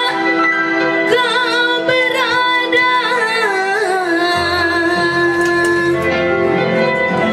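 Live dangdut band: a woman singing a wavering, ornamented melody into a microphone over electronic keyboard and hand drums, settling on a long held note about four seconds in as a deeper bass part comes in.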